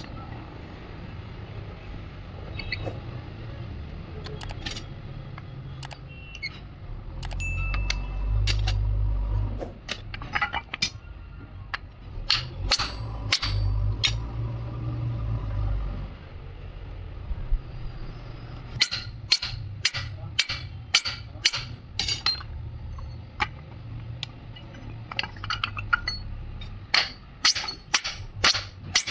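Sharp metallic knocks and clinks of hammer and tools on a tractor PTO shaft's universal joint yoke, scattered at first and then in quick runs of several blows, as the old cross is worked loose. Background music plays underneath.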